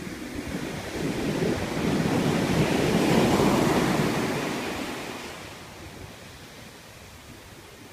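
Ocean waves: a wave breaks and washes in, its rush swelling over the first few seconds and then fading away by about six seconds in.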